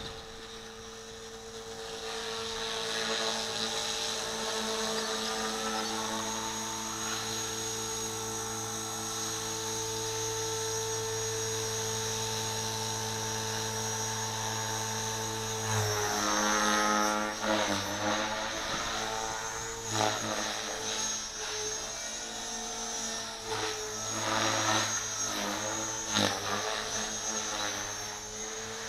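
Gartt 450L DFC electric radio-controlled helicopter flying, its brushless motor and rotors giving a steady whining hum for the first half. From about halfway the pitch repeatedly drops and climbs and the sound swells and fades as the load on the rotor changes through hard manoeuvres.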